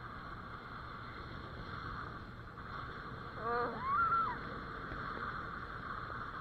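A steady rushing noise, with a person's short rising whoop about three and a half seconds in.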